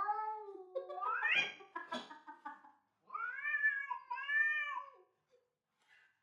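A domestic cat meowing several times, in long drawn-out meows whose pitch rises and falls. The last two calls come in the second half and stop about five seconds in.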